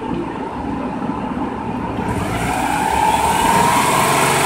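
Garden hose with a spray nozzle running water into a Subaru Forester's radiator filler during a coolant flush, over a steady low rumble. The hiss of the water grows stronger about two seconds in, and a faint whistling tone rises slightly near the end.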